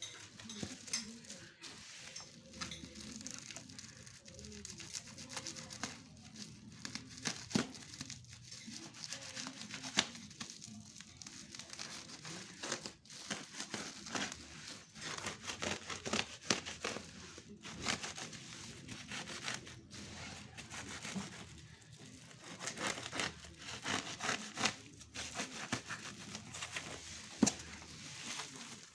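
Packaging of a gaming keyboard bundle being handled and opened: crinkling and rustling, with many scattered sharp clicks and taps.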